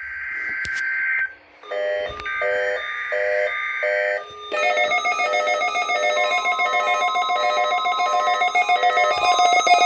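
NOAA Weather Radio Emergency Alert System test. Two roughly one-second bursts of SAME digital header data make a harsh buzzing screech, with four short electronic beeps over the second burst. About four and a half seconds in, a continuous ringing electronic alert starts, and a steady warning-alarm tone joins it beneath.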